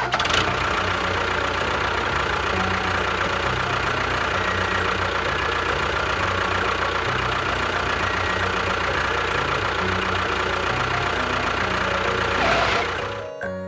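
An engine running steadily, swelling briefly near the end before it cuts off suddenly.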